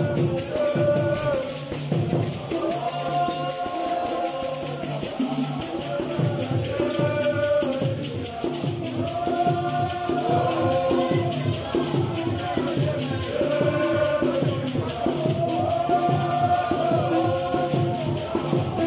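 Congregation singing a hymn together, with shaken rattles or tambourine keeping a steady beat under the voices.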